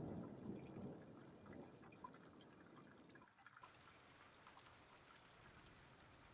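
A thunder rumble dies away over about the first second, leaving faint rain dripping.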